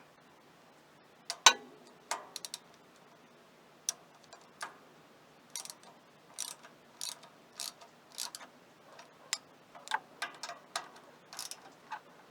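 Ratchet wrench clicking as the ignition coil's mounting bolts are tightened on a Briggs & Stratton opposed-twin engine, the clicks coming in short runs a little under twice a second from about five seconds in. A few scattered clicks come before that, and the loudest is a single sharp metal clack about one and a half seconds in.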